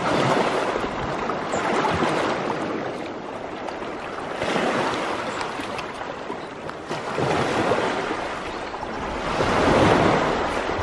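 Small sea waves breaking and washing up a sandy cove among rounded rocks, surging about every two to three seconds, the loudest surge near the end.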